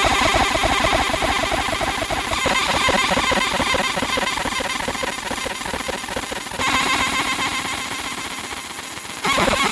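A 30 W laser working on aluminum, making a rapid, rattling buzz. Its tone changes abruptly about two and a half and six and a half seconds in, and it jumps louder near the end.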